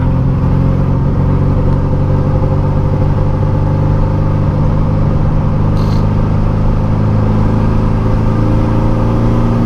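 Air-cooled 1700 cc flat-four engine of a turbocharged 1979 VW Beetle running at a steady speed under way, heard from inside the cabin as an even drone. A brief click comes about six seconds in.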